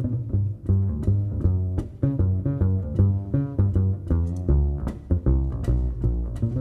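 Live big band swing jazz with a plucked double bass standing out over the drums' steady cymbal beat.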